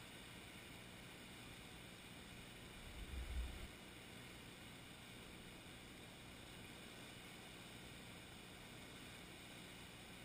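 Near silence: a faint steady hiss, with one brief low rumble about three seconds in.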